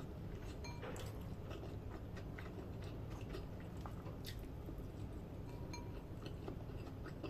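Faint close-up chewing of a mouthful of fried rice, with scattered small clicks as fingers pick the last grains from a plastic bowl, over a steady low hum.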